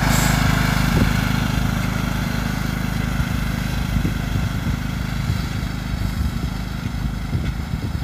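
John Deere lawn tractor's engine running steadily under load as it pulls a wheel rake, fading slowly as it drives away.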